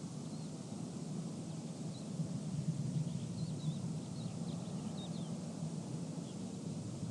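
Desert ambience: a steady low hum and rumble from distant generators and construction machinery, with a light wind hiss. A few faint bird chirps come in the middle.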